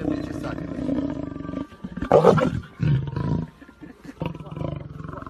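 A large animal roaring, several calls in a row, the loudest about two seconds in.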